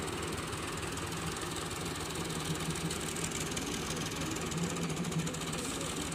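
Massey Ferguson 385 tractor's diesel engine running steadily at an even pitch.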